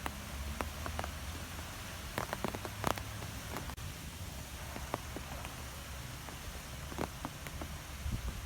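Wind blowing through trees: a steady rustling hiss with a low rumble underneath, and scattered irregular ticks and taps.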